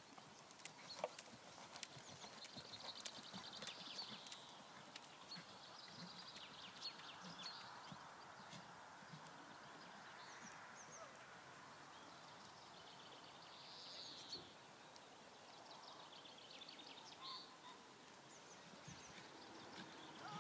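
Faint, muffled hoofbeats of a horse moving on a soft arena surface, clearest in the first few seconds, over quiet outdoor background with some high chirps.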